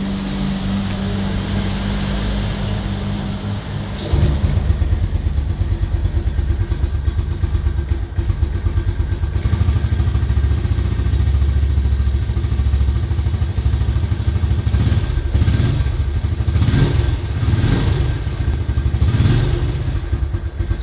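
Honda Biz 125's single-cylinder four-stroke engine running on its original stock exhaust. It steps up louder about four seconds in, then is revved in several short throttle blips in the last few seconds.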